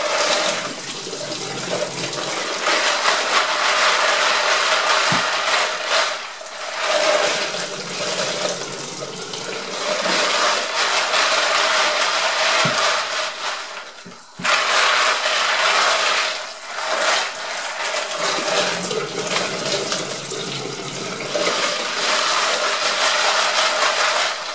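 Hot tap water running and splashing into a plastic tub of .223 brass cartridge cases, which clink against each other as they are swirled to rinse out the tumbling soap.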